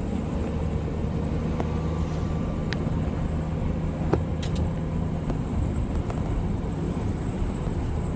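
Steady low engine and road drone inside the cab of a moving U-Haul box truck, with a few faint clicks.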